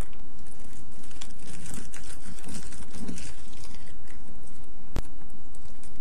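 Faint rustling and light clicks from a plastic Rubik's Cube being handled, over a steady hiss, with one sharp click about five seconds in.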